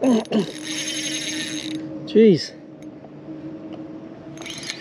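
Fishing reel whirring in two bursts, about a second and a half near the start and a shorter one near the end, as a hooked flathead is played.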